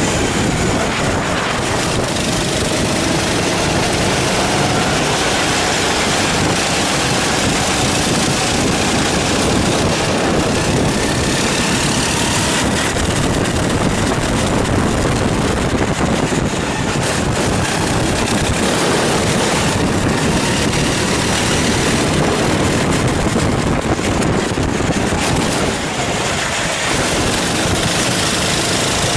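Sodi rental go-kart engine heard from on board, revving up and down through the corners, mixed with heavy wind and road noise.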